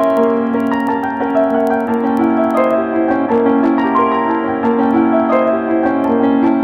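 Piano music, a steady stream of notes.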